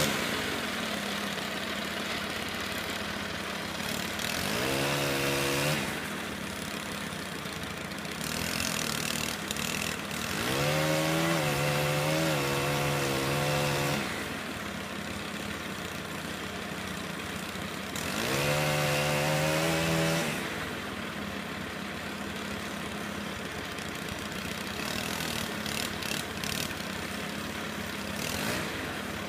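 Gas chainsaw revved to full throttle three times for cuts, each time rising sharply in pitch, holding for one to three and a half seconds, then dropping back. The middle burst is the longest. Between the cuts a steady engine idle continues.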